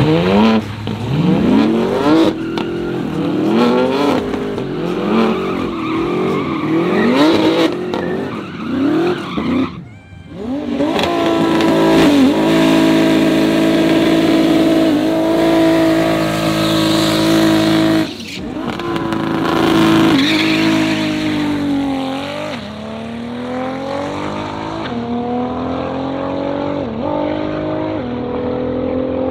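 Drag-racing car engines revving hard in repeated sharp bursts. Then an engine is held at high revs for several seconds during a tyre-smoking burnout, with some tyre squeal. Near the end a car accelerates, its pitch climbing and dropping back at each gear change.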